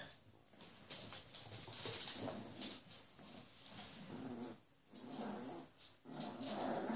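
Bichon frise puppies play-fighting: irregular bouts of small puppy growls and whines, with scuffling, coming and going every second or so.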